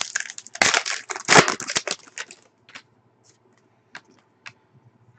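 Trading cards being handled: a couple of seconds of scratchy rustling as cards slide against each other, then a few light clicks and taps.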